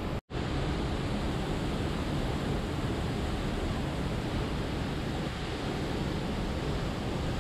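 Steady rush of a river flowing over rocks, a constant even noise. It cuts out for a split second just after the start.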